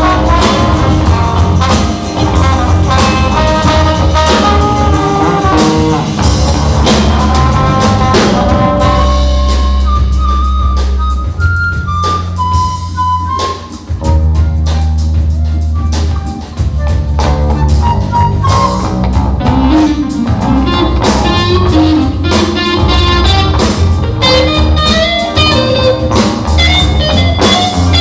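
Live band playing an instrumental passage: a drum kit and bass under a lead melody line. The texture thins out for a few seconds midway, then the full band comes back in.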